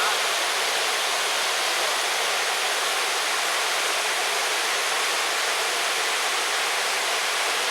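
Waterfall pouring steadily: an even rush of falling water with no breaks.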